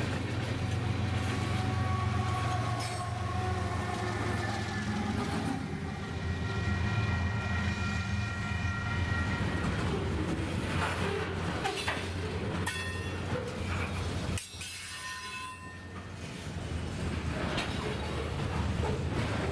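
Freight cars of a passing freight train rolling by on the rails: a steady low rumble with clicks of wheels over rail joints. Drawn-out high tones rise over it partway through.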